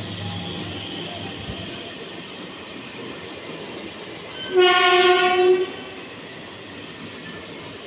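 Indian Railways passenger train rolling steadily past. A single loud locomotive horn blast lasting about a second sounds a little past the middle.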